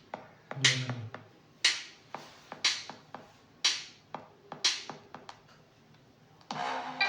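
Music playing from the Infinix Note 40 Pro 5G's JBL-tuned speakers: a sparse intro of snappy, reverberant percussion hits about once a second with light clicks between them, then a full electronic track coming in near the end.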